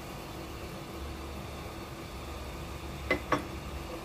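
Steady low hum and hiss from a stovetop pot of water heating back toward the boil, with two light clicks a quarter second apart about three seconds in.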